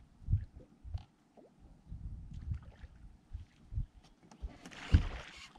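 Gusty wind buffeting the microphone on an open boat deck, with a few faint ticks. Near the end there is a sudden thump and a louder rush of noise as the rod is swept up to set the hook.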